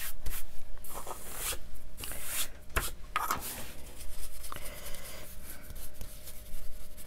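A brush scrubbing over gold leaf on a paper journal page, working it down and brushing off the loose flakes: irregular dry scratching and rubbing strokes.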